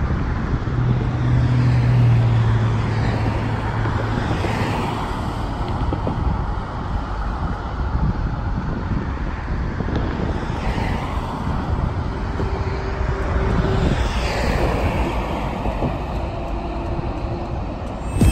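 Road traffic noise from vehicles passing on the overpass, with a low hum in the first few seconds.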